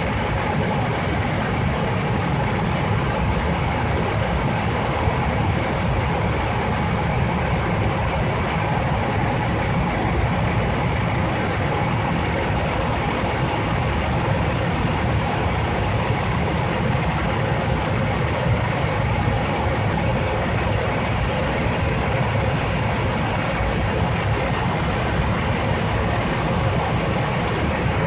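Steady roar of engine and rushing air heard inside an airliner cabin in flight, with a faint steady hum over the deep rumble.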